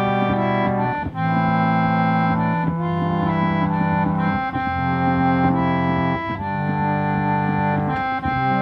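Organ playing slow sustained chords, moving to a new chord about every one to two seconds.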